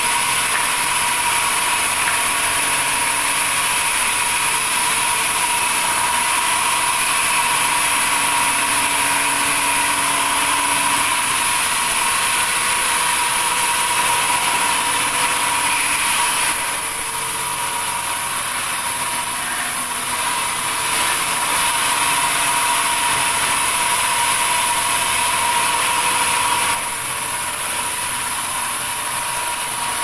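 Large vertical sawmill band saw running with a steady high whine as slabs of red durian wood are fed through the blade. The sound drops a little a bit past halfway and again near the end, as the cutting eases.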